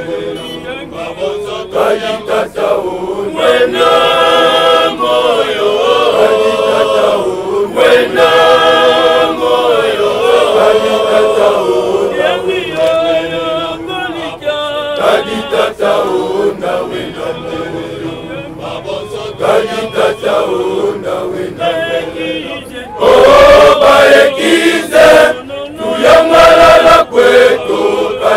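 A chorale of men's voices singing a chant in unison, with clicks from a pair of wooden sticks struck in time. The singing grows louder about 23 seconds in.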